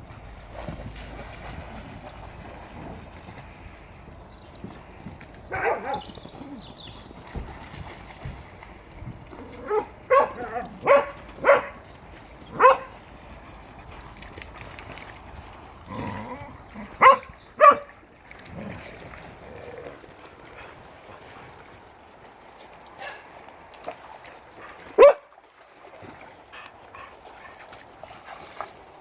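Dogs barking in short scattered bursts: a single bark, then a run of four, a pair, and a last loud single bark near the end.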